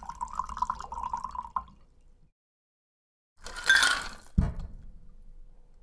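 A shaken cocktail being poured from a metal cocktail shaker into a glass, liquid streaming for about a second and a half. After a short silent gap comes a brief loud rush of noise, then a dull thump.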